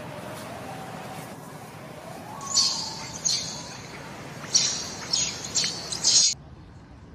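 Baby macaque giving distress screams: a series of about six shrill, high-pitched squeals, the last cut off abruptly.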